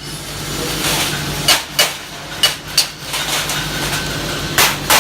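A small hammer striking a fresh stick-weld bead to chip off the slag coating: six sharp metallic strikes, coming in pairs.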